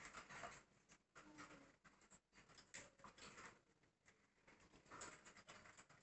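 Near silence with faint, scattered patter and scratching of budgerigars moving about their wire cage, over the seed tray and perches.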